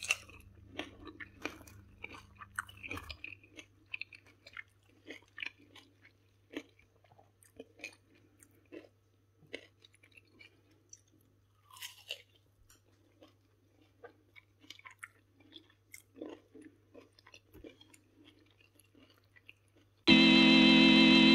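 Close-up chewing of a crunchy, chicharon-crusted eggplant meatball: many short, irregular crunches and mouth clicks. Loud music starts abruptly near the end.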